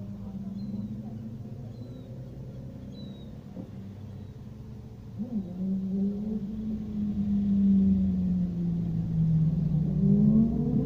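Car engines running at low speed in slow traffic: a low, steady engine drone that gets louder about five seconds in as cars drive slowly past close by.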